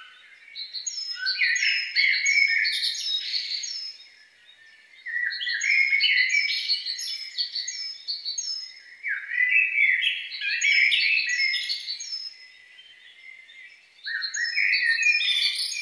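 A songbird singing: a rapid, varied run of high chirping notes about three seconds long, repeated four times with short pauses between.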